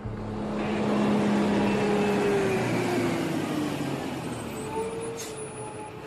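Heavy truck engine running as it moves, one tone in it sinking slowly in pitch as the sound slowly fades, with a brief hiss about five seconds in.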